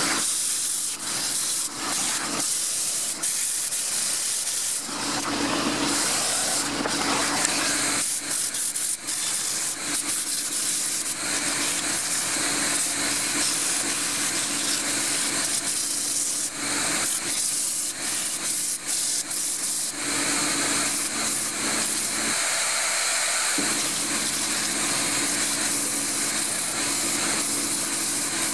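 A dust extractor draws air through its hose with a steady hiss, while a Record Power wood lathe spins a turned bowl with a steady hum beneath.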